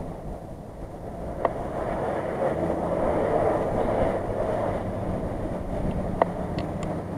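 Off-road vehicle engines running at a distance under a steady rumble of wind on the microphone. There are two sharp clicks, about a second and a half in and again near the end.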